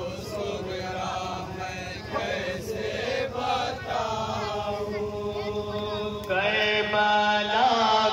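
Male voices chanting a nauha, a Shia mourning lament, through microphones and a loudspeaker, the melody swelling louder with long held notes about six seconds in. A steady low hum runs underneath.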